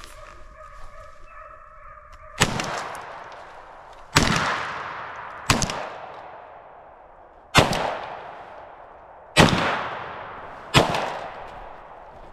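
Six gunshots fired at uneven intervals of one to two seconds, each trailing off in a long echo.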